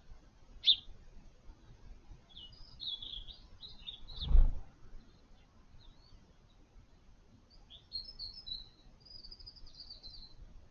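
Small birds at a garden feeder giving high chirps and twittering calls in two spells, with one sharp chirp just before. A dull thump about four seconds in is the loudest sound.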